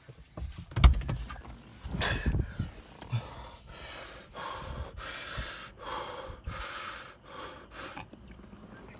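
A person breathing hard in and out through the mouth, a breath about every second, his mouth burning from a hot pepper he has just eaten. A loud thump comes about a second in.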